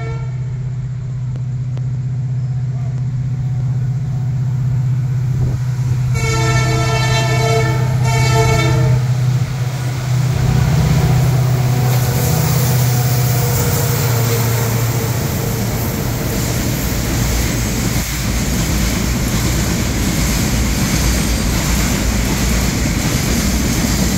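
A double-headed diesel-hauled freight train approaching and passing: a steady low engine drone, two horn blasts about six and eight seconds in, then the locomotives go by. Loaded tank wagons follow, rolling past with a loud, steady rumble of wheels on rail.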